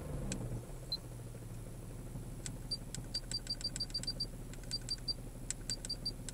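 Opel Omega B engine idling with a low, steady hum, its revs settling back down over the first second or so. From about two and a half seconds in come irregular light ticks, several a second.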